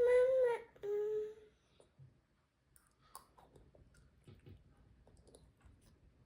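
A toddler's voice making two short whiny hums in the first second and a half, then only faint scattered clicks and taps.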